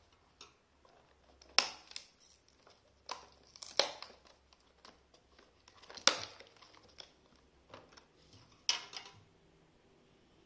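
Clear plastic wrap on a small product box crinkling and tearing as it is cut with scissors and pulled away, in a handful of sharp crackles a second or two apart.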